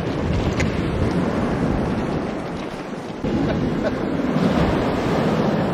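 Sea waves washing on the shore with wind buffeting the microphone, a steady rushing noise that gets suddenly louder about three seconds in.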